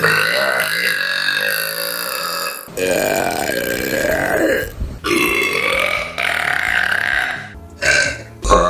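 Women burping, about five burps in a row, several of them long and drawn-out, with an abrupt cut between each one.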